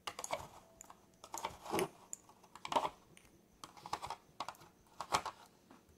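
Light, irregular clicks and taps of small dipping-powder jars being lifted out of their box and set down one by one.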